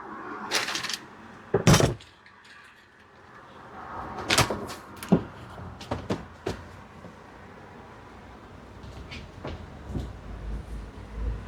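A series of irregular knocks and clunks from things being handled during the camera fitting inside the van, the loudest about two seconds in. A low rumble rises near the end.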